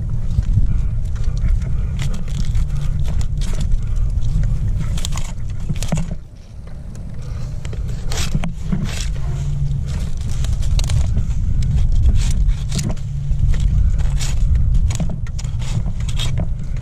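A steady low rumble under scattered scrapes and clicks: gloved hands and metal climbing hardware scraping and clinking against the bark of a tree trunk.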